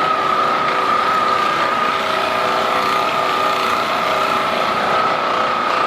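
A handheld electric massage gun running steadily, a constant motor whine with a buzz.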